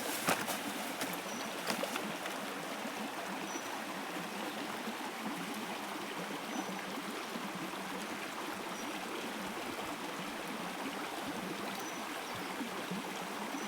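Steady rushing of a flowing stream, with a few sharp clicks in the first two seconds.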